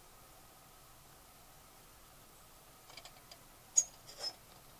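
A few small metallic clicks and clinks from a Feuerhand Baby storm lantern being handled, over a quiet background; the sharpest clink comes a little before the end, followed by a softer one.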